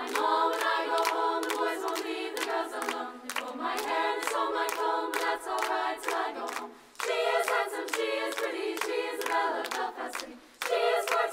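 Women's choir singing in close harmony while the singers clap their hands in a steady rhythm. The singing drops out for a moment about seven seconds in and again near the end.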